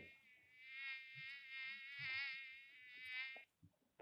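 Mosquito buzzing in flight: a thin high whine whose pitch wavers. It dips briefly about half a second in and stops shortly before the end.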